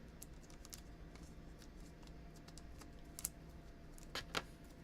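Faint rustling of plastic and a few light clicks as a trading card is handled and slid into a plastic card sleeve, with a couple of sharper clicks near the end.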